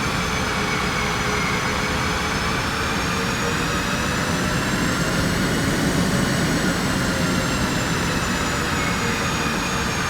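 Jet airliner engines running with a steady rush and a high turbine whine; the whine rises slightly in pitch towards the middle and then eases back down.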